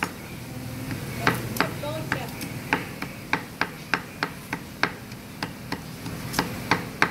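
Cleaver chopping red chilies on a round wooden chopping block: sharp, evenly spaced knocks of the blade on the wood, about three a second, starting about a second in.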